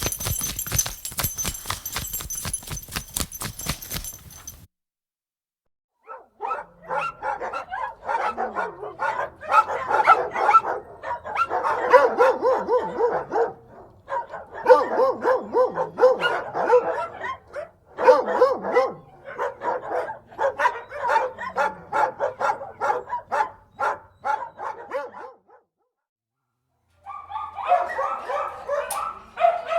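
A dog's collar tag jingles and clicks as it scratches for the first few seconds. After a brief gap, many dogs bark over one another in an outdoor kennel, almost continuously. Near the end, after another short gap, dogs in an indoor kennel start barking and whining.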